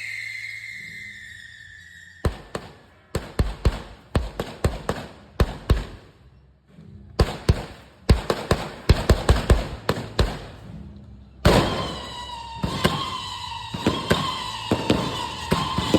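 Fireworks going off in rapid clusters of sharp bangs, beginning about two seconds in, with a brief lull in the middle. In the last few seconds a long whistle sliding slowly down in pitch sounds under the continuing bangs.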